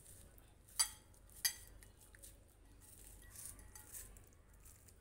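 Pieces of poma fish being mixed by hand with salt and turmeric in a glass bowl, faint and wet, with two sharp clinks against the glass that ring briefly, one a little under a second in and one about half a second later.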